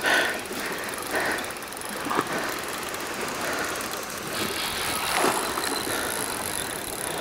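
Fishing reel giving line in fast clicks as a large red sea bream runs hard against the bent rod, over a steady outdoor hiss of wind and sea.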